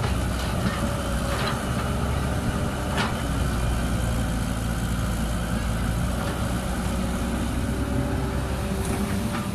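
Caterpillar 312B excavator's diesel engine running steadily under load while the bucket digs into soil and lifts, with a couple of brief knocks early on.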